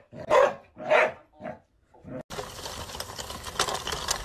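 A golden retriever barking, about one bark every half second, three times. After a short pause there is a steady rattling scrape: the small wheels of a toy cart rolling over dirt and gravel.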